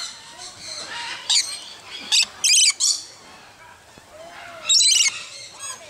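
Parrots squawking: several short, harsh, high-pitched squawks while they crowd a hand to drink juice from a cup.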